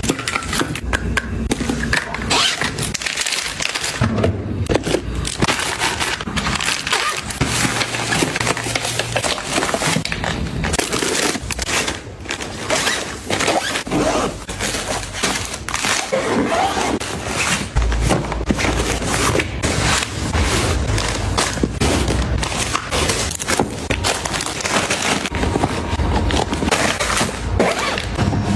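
Close-up handling sounds of packing: a dense, irregular run of clicks, taps and crinkles as plastic toiletry tubes, jars and pouches are handled and the fabric and mesh compartments of a soft suitcase are worked.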